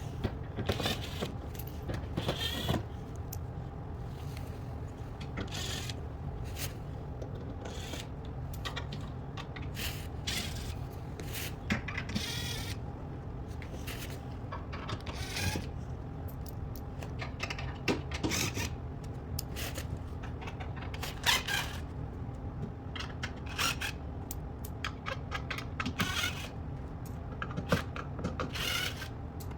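Irregular clicks, taps and rattles of hand work with tools and parts over a steady low hum.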